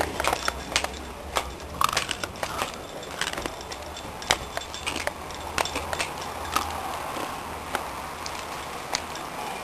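Footsteps and handling noise from a hand-held camcorder carried while walking: irregular light clicks and crackle, roughly one or two a second, over a faint low hum.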